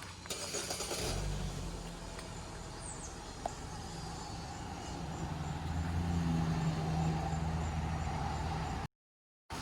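A motor vehicle engine running with a steady low hum that grows louder in the middle, then the sound cuts out abruptly twice near the end.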